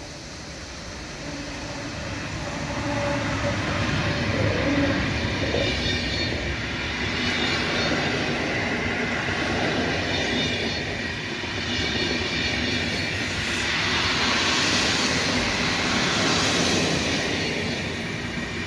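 PKP Intercity passenger train hauled by an EU160 (Newag Griffin) electric locomotive, getting louder over the first few seconds as it approaches. Then the coaches roll past close by with a steady rumble of wheels on rails.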